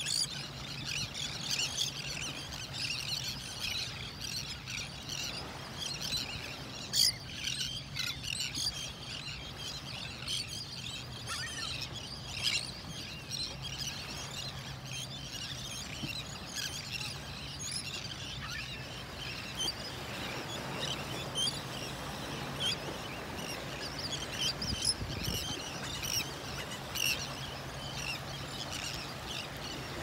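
A large mixed flock of gulls and terns calling without a break: many short, high calls overlapping into a constant chatter, with a faint low steady hum underneath.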